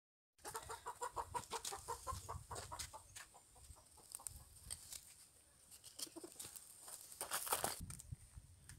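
Ferret dooking: a quick run of soft clucking chuckles, about four or five a second, the excited sound ferrets make at play. The chuckles thin out after about three seconds, and dry twigs and leaves crackle throughout, more loudly near the end.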